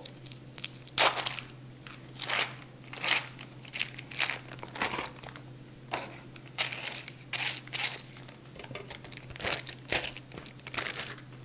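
Foil wrapper of a block of cream cheese crinkling and tearing as it is peeled open and handled, in a string of irregular crackles and rustles, over a faint steady low hum.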